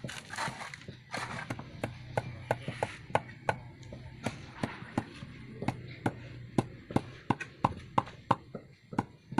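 Claw hammer tapping the top of a hollow interlocking brick to seat it down into its mortar bed: quick, sharp repeated knocks, about three a second, starting about a second in.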